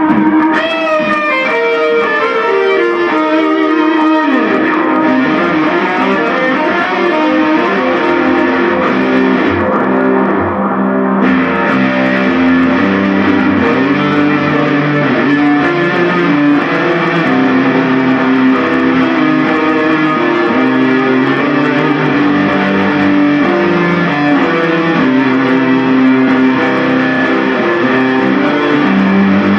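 Guitar playing a continuous line of sustained notes, with a few bent notes about a second in, recorded through a phone's microphone.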